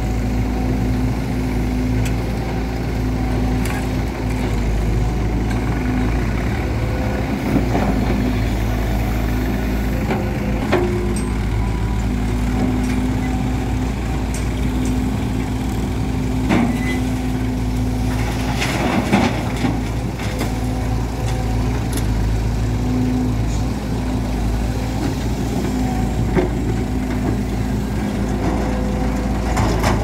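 Volvo EC210D tracked excavator's diesel engine running steadily as it digs and loads soil, with several short thuds and clanks from the bucket and the soil dropping into a tractor trolley.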